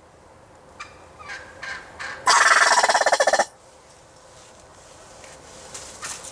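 Wild turkey tom gobbling: one loud, rapid rattling gobble a little over two seconds in, lasting just over a second, after a few short, softer calls.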